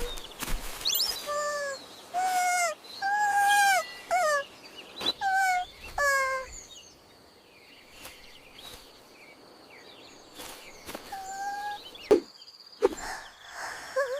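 Birds chirping and trilling: a quick run of short whistled calls in the first half, then quieter, with one more call and a couple of soft knocks near the end.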